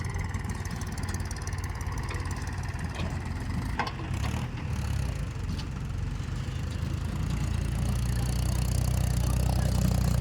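A heavy vehicle's engine running steadily at low speed, growing louder over the last few seconds, with a sharp click about four seconds in.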